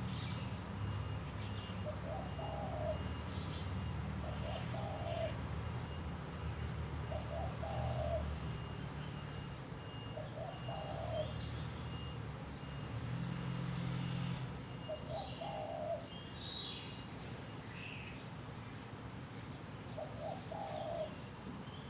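Spotted dove cooing, short coo phrases repeated at uneven gaps of one to four seconds. A few sharp high chirps or ticks come about two-thirds of the way in.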